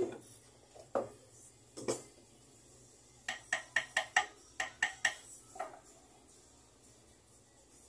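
Small metal hand tools knocking and clinking on a jeweller's bench: a few separate knocks, then a quick run of about ten light metallic clinks, each with a brief ringing tone, and one last clink.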